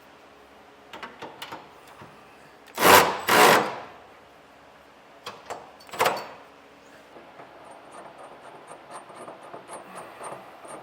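Metal hardware being fitted by hand onto bolts under a truck bed: clicks and clinks of spacer blocks and flange nuts, with two loud short rasps about three seconds in and another about six seconds in, then light, quick ticking near the end.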